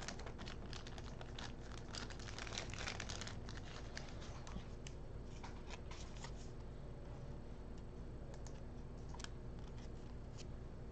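Faint crinkling and small clicks of a thin plastic card sleeve as a trading card is slid into it, then trading cards being thumbed through by hand. The crinkles are densest in the first three seconds and thin out after.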